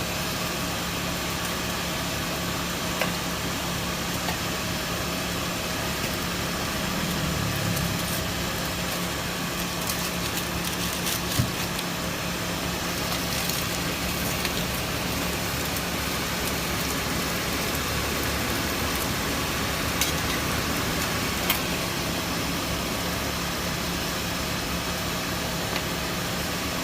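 Steady mechanical hum and hiss of a street-food stall, with a few sharp clicks now and then.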